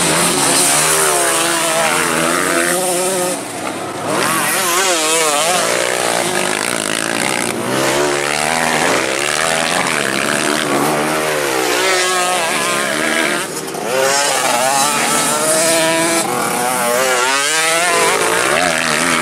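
Several racing dirt-bike engines revving hard, their pitch climbing and dropping again and again as the riders work the throttle through the corners and bumps.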